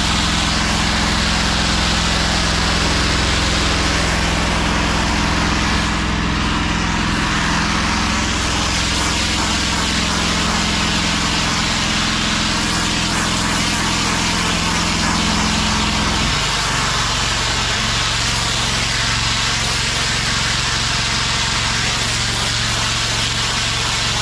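Gas-engine pressure washer running steadily under a constant hiss of water spray. About 16 seconds in the engine note changes abruptly and settles to a lower, thinner tone.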